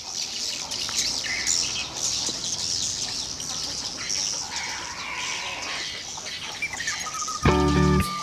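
A flock of swiftlets giving many overlapping high, twittering chirps. A guitar music track comes in about seven and a half seconds in.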